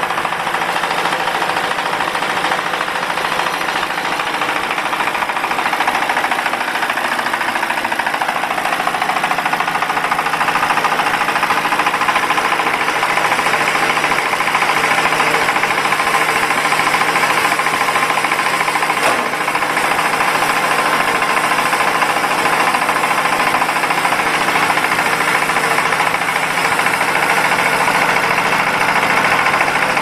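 Small single-cylinder diesel engine running steadily with a knocking beat, driving a mini round baler and its bale wrapper, whose machinery runs along with it.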